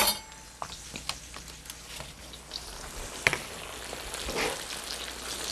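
Boneless chicken breasts frying in hot oil in a pan, a steady sizzle with scattered small pops and one sharper click about three seconds in, growing a little louder near the end.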